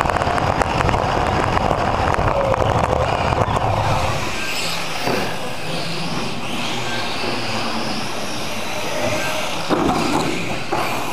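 Mini RC car's motor and drivetrain whirring, with tyre rumble on carpet, as it races, then stopping about four seconds in. After that, the whine of other RC cars running around the track rises and falls.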